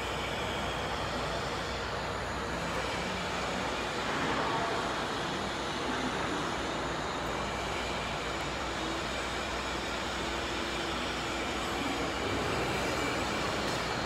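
Steady mechanical running noise of a CNC oscillating-knife cutting machine, even throughout with no separate knocks or strokes.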